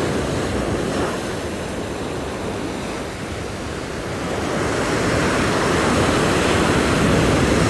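Ocean surf breaking and washing up the beach, with wind on the microphone; the wash grows louder about halfway through.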